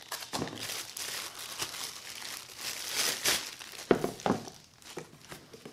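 Plastic packaging bag crinkling and cardboard box rustling as they are handled, with a couple of sharp knocks about four seconds in.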